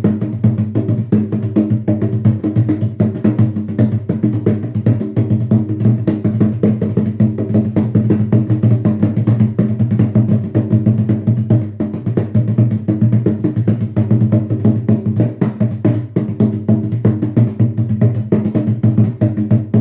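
Atabaque, the tall Afro-Brazilian hand drum, played in a fast, dense, steady rhythm, with a deep ringing tone sustained under the strokes.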